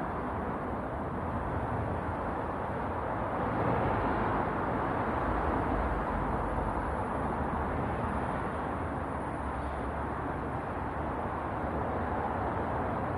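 Outdoor HVAC equipment running: a steady noise with a low rumble that swells slightly about four seconds in.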